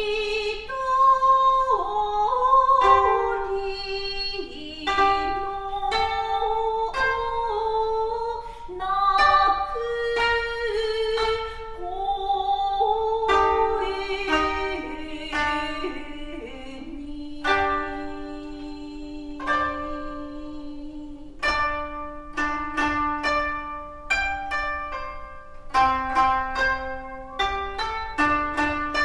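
Two koto played in duet, tuned in kokin-jōshi, with a woman's voice singing held, wavering notes over the plucked strings. About halfway through the voice stops, and the koto carry on alone with quicker, sharper plucked notes.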